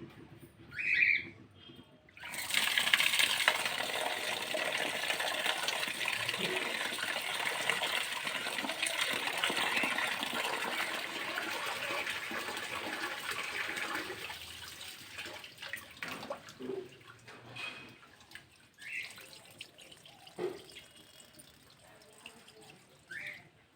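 Water running steadily from a tap, starting a couple of seconds in and tapering off about halfway, followed by scattered light knocks and clinks.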